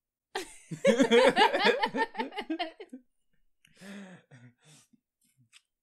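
A man laughing heartily, with rapid pulses of laughter for about two and a half seconds, followed by a softer chuckle near the end.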